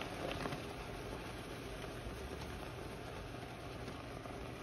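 Vegetables added by hand to a cast iron pan of sauce on the stove: a few faint knocks about half a second in, over a steady hiss and low hum.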